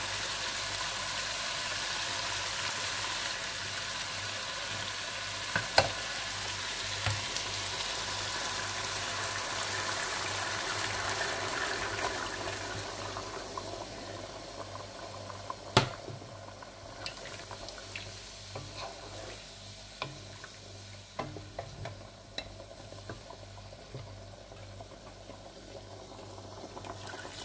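Chicken frying in a pot with onion and yogurt, sizzling as it is stirred. The sizzle dies down a little after halfway, with a couple of sharp knocks along the way.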